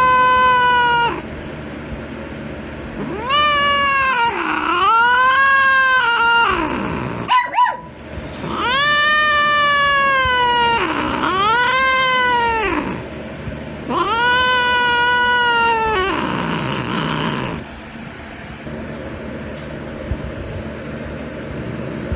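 A domestic cat yowling in a string of long, drawn-out wails, each one to two seconds with short breaks, dipping and falling in pitch: an upset, agitated cat. A couple of sharp knocks come about halfway, and the yowls stop a few seconds before the end.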